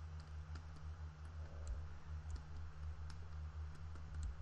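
Faint irregular clicks from a computer input device during digital brushwork, over a steady low hum.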